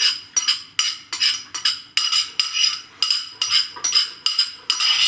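A utensil stirring in a stainless steel mixing bowl, knocking against its side about three times a second. Each knock sets the bowl ringing.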